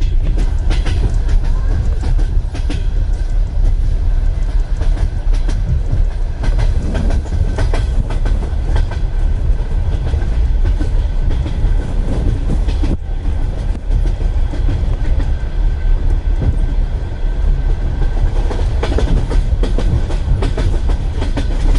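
Wheels of a Russian Railways passenger carriage clattering over rail joints, with the steady low rumble of the moving train, heard from inside the carriage.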